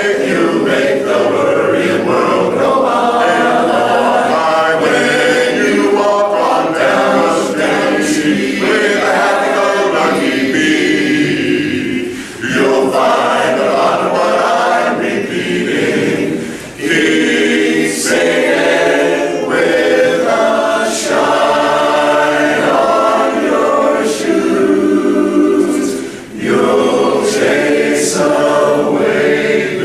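Male barbershop chorus singing a cappella in close four-part harmony, with a few short breaths between phrases.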